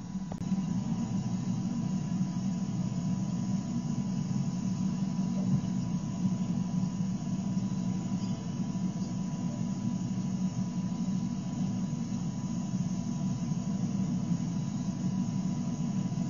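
Steady low rumble of background noise, with a faint constant tone above it.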